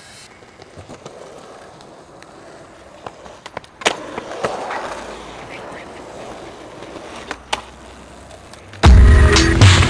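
A skateboard rolling on pavement, with sharp clicks of the tail popping and the wheels landing. The loudest click comes about four seconds in, and another follows near the end. Loud music comes in about a second before the end.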